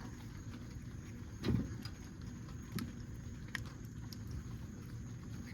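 Faint, small clicks and a soft knock from brake parts being handled by hand, over a steady low background hum; the knock comes about one and a half seconds in.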